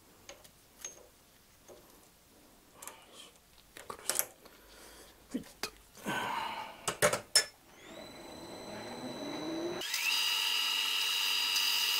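Metal lathe being set up and started: light clicks and knocks of handling for several seconds, then the spindle motor spinning up with a rising whine a little before eight seconds in. From about ten seconds in a louder steady hiss joins the whine as the tool turns the valve head.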